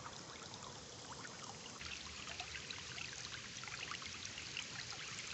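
Shallow, clear stream water trickling and babbling over rocks: a steady rush with many small splashes and drips. The water sound shifts about two seconds in.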